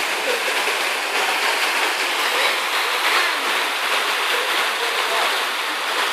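Steady rushing and splashing of falling water from a pool's spray fountains and water slides.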